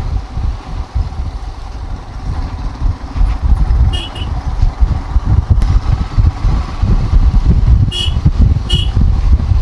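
Motorcycle running while being ridden, under a heavy, uneven low rumble. Three short high beeps cut through: one about four seconds in and two close together near the end.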